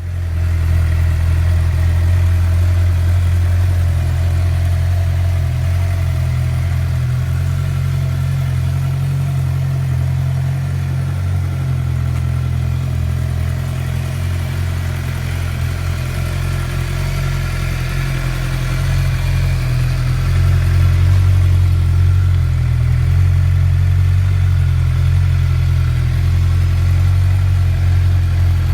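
2008 Suzuki GSX-R 600 K8's inline four-cylinder engine idling steadily through an aftermarket Yoshimura exhaust, a deep, even note that gets a little louder in the second half.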